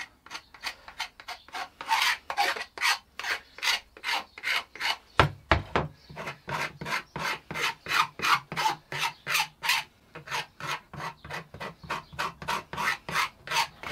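Utility-knife blade dragged lightly and repeatedly along the edge of a sanded plastic motorcycle pillion cover, scraping off the furry edges: an even run of short scraping strokes, about three a second. A dull knock about five seconds in.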